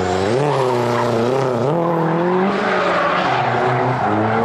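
Drifting Mazda Miata: its engine revs rise and fall with the throttle while the rear tyres squeal and skid sideways across the asphalt, the revs holding steadier near the end.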